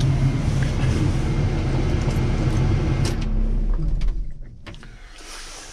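A John Deere wheel loader's diesel engine running steadily, heard inside the cab. It cuts out about four seconds in with a click, and the low rumble fades away after it, as though the engine is shut off.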